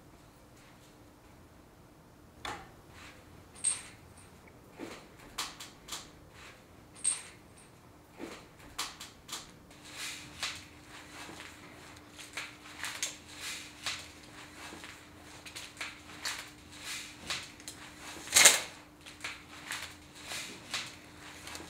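Irregular short taps and knocks, few at first and coming more often in the second half, with one louder knock near the end, over a faint steady hum.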